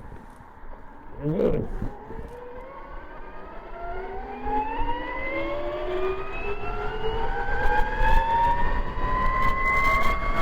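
Electric dirt bike motor, an X Pro 4000 upgraded to 72 V, whining in a steadily rising pitch as it accelerates hard, growing louder over the last several seconds, with wind rumble underneath. A short pitched sound comes about a second and a half in.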